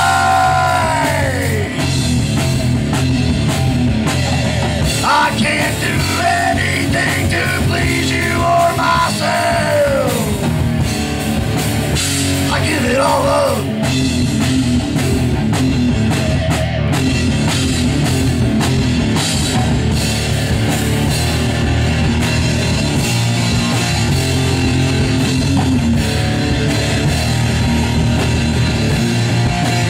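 A hard rock band playing live with electric guitar, bass and drum kit. A singer's long held notes bend over the band in the first half, and the band plays on without vocals after that.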